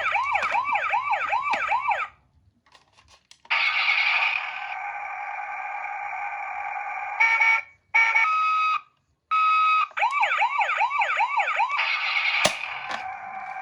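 Toy ambulance's electronic siren sounding. A fast whooping yelp with several rising sweeps a second stops after about two seconds. After a short gap, steady and stepped electronic tones play, then the fast yelp returns. A click near the end switches the sound back to a steady tone.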